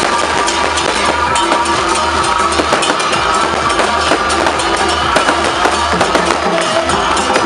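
Music with drums and other percussion struck in quick, sharp strokes over a few held tones.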